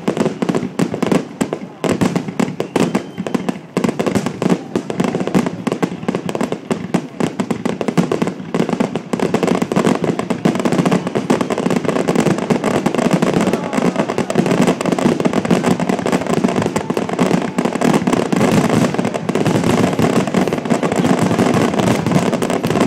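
Fireworks finale: a rapid barrage of aerial shell bursts, many bangs a second, running together into a nearly continuous barrage after about ten seconds.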